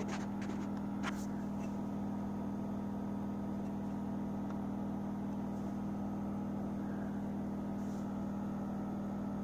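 Fluval FX6 canister filter's pump motor running with a steady hum, unprimed and running dry with no water poured into the canister. A single light click about a second in.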